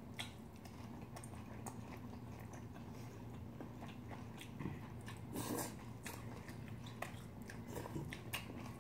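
Close-miked eating of spicy mixed cold buckwheat noodles (bibim naengmyeon): faint chewing with small wet mouth clicks and a slightly louder burst about five and a half seconds in.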